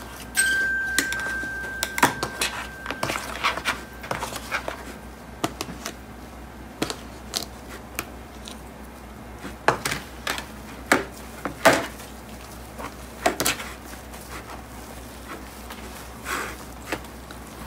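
Plastic tub, measuring cup and spoon knocking and clattering on a tabletop as they are handled, in scattered sharp clicks, the loudest about ten to thirteen seconds in. A thin steady high tone runs for the first three seconds, with a low hum underneath throughout.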